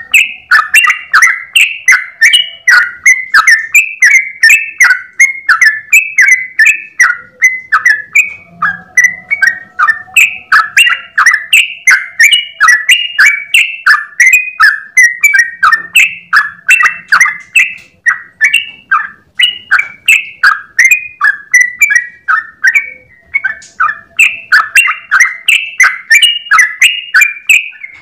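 Yellow-vented bulbul (trucukan) singing its long, unbroken 'ropel' song: quick, bubbly, pitch-sliding notes repeated about two to three times a second without a pause.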